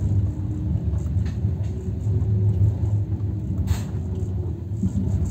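Steady low rumble of a moving vehicle, with one sharp click about three and a half seconds in.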